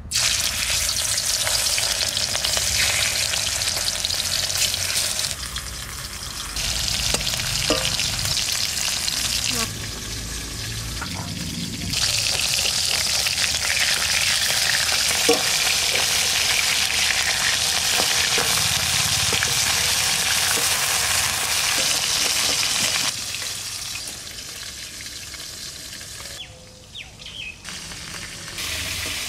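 Red vetki (barramundi) steaks frying in hot mustard oil in a metal wok: a loud, steady sizzle that starts abruptly as the fish goes into the oil, with a few scrapes of a spatula. The sizzle drops lower near the end.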